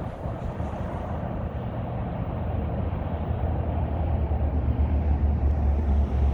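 Union Pacific freight train's diesel locomotives approaching: a low rumble that grows slowly louder, with wind buffeting the microphone.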